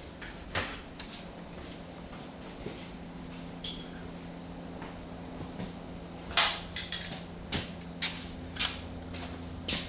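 Scattered metal clicks and clinks as a piston ring compressor is handled and fitted around a piston, with one longer scrape about six seconds in, over a steady high-pitched whine and low hum.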